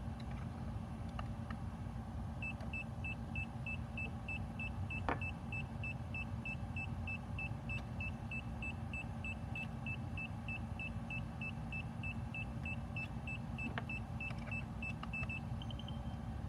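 DJI FPV goggles beeping in link (binding) mode while searching for the Caddx Vista: short high beeps about three a second, stopping shortly before the end, over a low steady hum.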